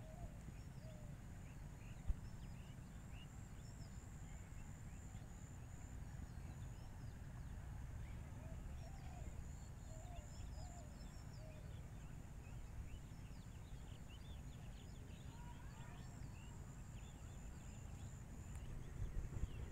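Rural field ambience: scattered short bird calls over a steady high-pitched whine and a low steady rumble, with a single sharp click about two seconds in.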